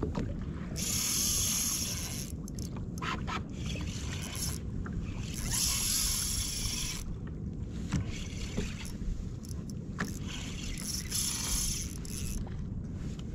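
Sea water sloshing and splashing against a kayak's hull in three swelling washes, over a steady low rumble.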